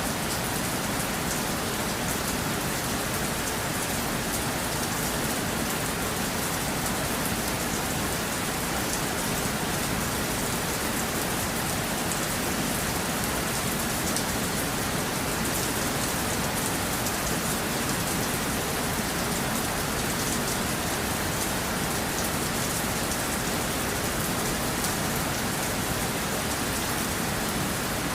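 Steady rain falling: an even, unbroken hiss of many drops, dense ticking of drops in the highs, with no change in strength.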